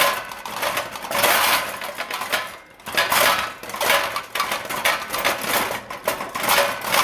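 Household objects rattling and clattering during earthquake shaking: glass, dishes and furniture knocking together in a dense, continuous racket that swells and eases in waves.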